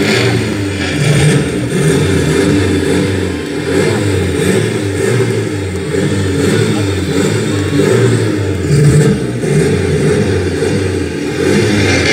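Loud vehicle engine running and revving, its pitch and level rising and falling, heavy in the low end.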